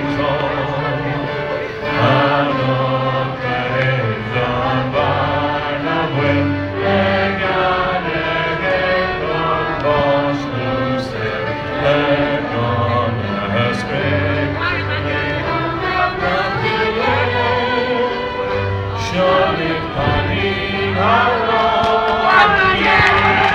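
Music with a choir singing: sustained sung notes over a low accompaniment.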